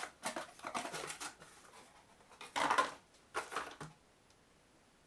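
Cardboard packaging of a battery charger being handled and opened as the charger is pulled out: scraping and rustling of cardboard in a few short bursts.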